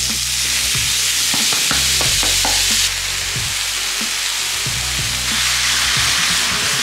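Field mushrooms sizzling in oil in a hot frying pan, a steady hiss, with occasional light knocks as they are stirred.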